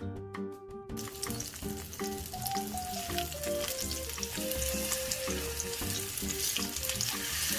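Panko-breaded pork chops frying in a layer of hot oil in a pan, a steady sizzle that sets in about a second in.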